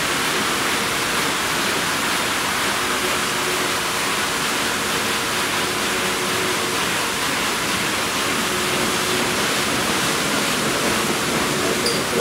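Christ Genius rollover car wash gantry at work: water spraying and brushes spinning against a car. It makes a steady rushing hiss with a faint steady hum underneath.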